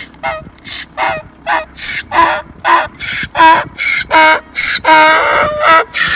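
Donkey braying: a long run of hee-haws, about three calls a second, alternating high squealing notes with lower honking ones.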